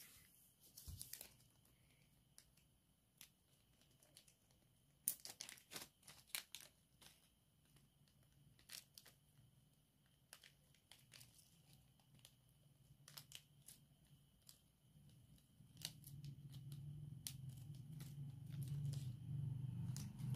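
Small clear plastic bag crinkling as it is handled and opened, in scattered crackles with a dense cluster about five to seven seconds in. A low hum grows near the end.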